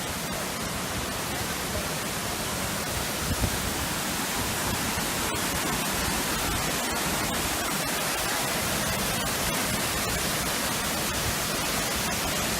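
Steady rushing of falling water from a mountain waterfall, an even hiss-like roar with no pitch, with a soft low knock about three seconds in.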